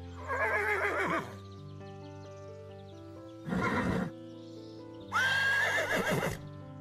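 A horse whinnying twice, each call quavering and falling in pitch, with a shorter, lower call between them. Soft background music with long held notes plays underneath.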